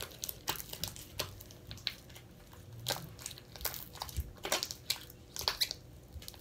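Glitter slime squeezed and kneaded between the hands, giving an irregular run of small sticky pops and squelches.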